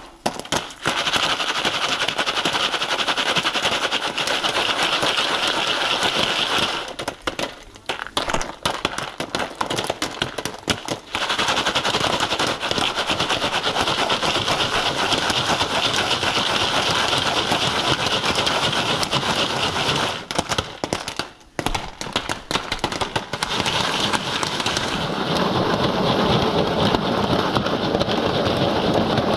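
Popcorn kernels popping fast inside a stovetop foil-pan popcorn kit as the pan is shaken over the burner, a dense crackling that thins out twice before picking up again.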